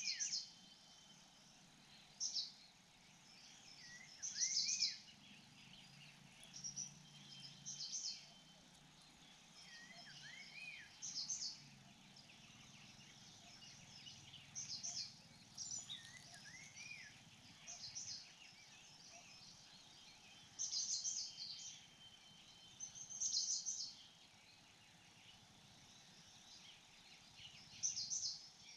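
Birds chirping: short high-pitched calls every second or two, with a few lower arching whistles, over a faint outdoor background.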